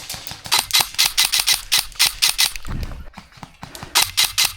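Airsoft gun firing a rapid string of single shots, about five or six a second. The firing stops briefly past the middle and resumes near the end.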